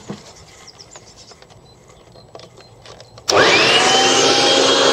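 A few faint clicks, then about three seconds in a garden blower, its spout fitted with a length of garden hose, switches on abruptly: a whine climbs quickly to a steady high pitch over a loud rush of air, really noisy.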